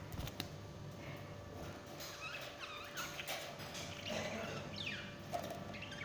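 Budgerigars chirping in short, quick calls, one call sliding down in pitch near the end, after a brief flutter of wings right at the start.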